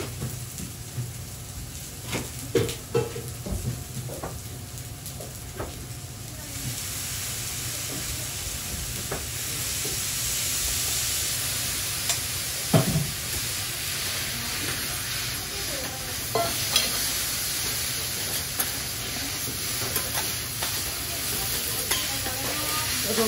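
Food sizzling on a teppan griddle while Hiroshima-style okonomiyaki cooks. The sizzle swells from about a quarter of the way in, with scattered clicks of metal utensils and one sharp knock a little past halfway.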